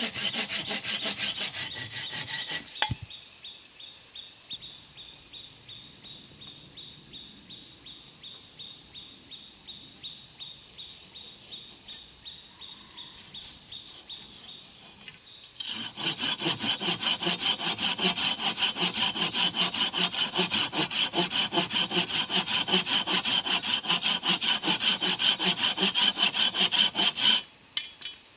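Hand pruning saw cutting through a peeled wooden pole in quick back-and-forth strokes. A short burst of sawing stops about three seconds in, then after a long pause a run of fast, even strokes starts and stops shortly before the end.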